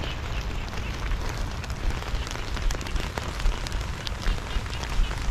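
Heavy rain falling: a steady hiss with frequent sharp ticks of single drops striking close by, over a low rumble.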